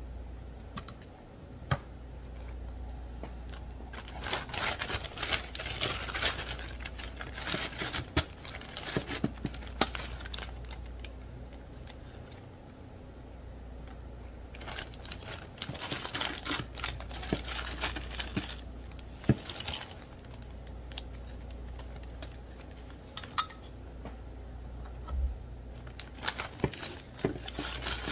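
Hands handling powdery ice, a plastic zip-top bag and a plastic tub: crinkling plastic and quick light clicks of ice. These come in two busy stretches, a few seconds in and again past the middle, with scattered clicks between.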